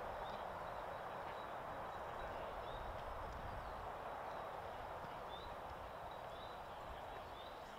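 Steady outdoor ambient hiss, with small birds giving short chirps now and then, more of them in the second half.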